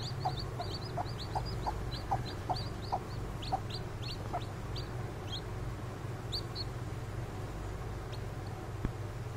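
Newly hatched Kadaknath chicks peeping: a run of short, high, falling peeps, about three a second, that thins out after about four seconds, with a last few peeps about six seconds in. A steady low hum runs underneath.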